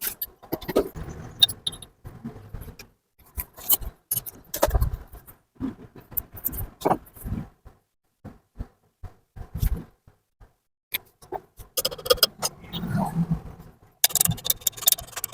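Irregular metallic clinks and knocks of tools and engine parts being handled, with a few brief quiet gaps and busier clatter near the end.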